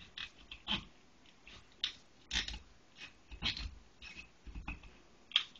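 Kitchen knife cutting through a whole raw chicken on a cutting board, a string of short, irregular crunching and scraping sounds as the blade is worked through the tough middle of the bird to split it in half.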